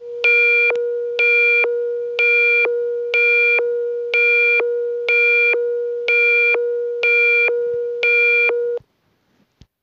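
Electronic emergency alert attention tone: a steady low tone with a buzzy higher beep pulsing over it about once a second, nine beeps, cutting off sharply near the end.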